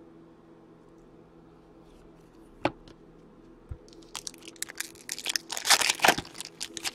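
Foil trading-card pack wrappers crinkling and rustling as hands handle them, starting about four seconds in and getting loudest just before the end. A single sharp click comes a little before the crinkling, over a faint steady hum.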